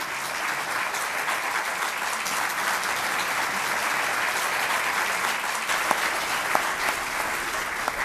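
A large audience applauding: many hands clapping together in a steady, dense patter.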